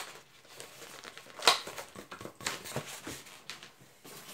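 Inflated latex modelling balloons rubbing and crinkling under the hands as two of them are knotted together, with several short sharp scrapes, the loudest about a second and a half in.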